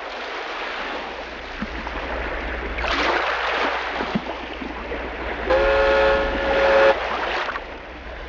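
A horn sounds one long blast of about a second and a half, several pitches at once, over a steady rushing noise that swells and fades.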